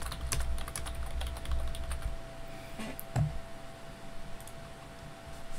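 Typing on a computer keyboard: a quick run of key clicks for about two and a half seconds, then a few scattered clicks, over a faint steady hum.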